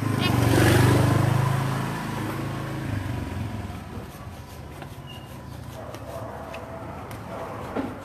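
A motor vehicle engine passing by, its low hum swelling about a second in and then fading away over the next few seconds.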